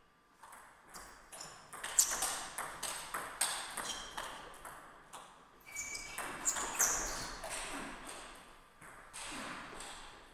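Table tennis rally: the ping-pong ball clicking sharply off the paddles and the table, a few hits a second, the rally dying away near the end.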